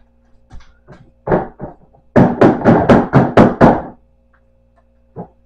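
Hard kitchen containers and dishes knocking and clattering as they are handled. A few light clicks come first, then a quick run of about eight sharp knocks in the middle, roughly five a second.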